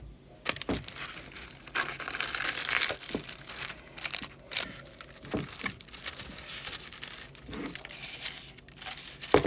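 Plastic wrapping on a frozen poutine tray crinkling in irregular bursts as it is peeled back and handled, with a few short knocks from the tray.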